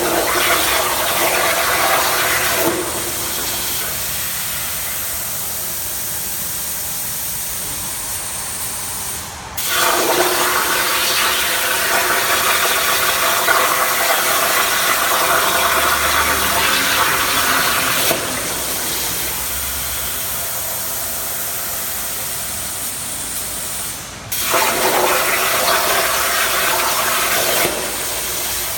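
CNC plasma cutting torch hissing while cutting, in three louder stretches: one at the start, one of about eight seconds beginning about ten seconds in, and a shorter one near the end. Each of the later two starts suddenly after a brief dip, and a quieter, steady hiss runs between them.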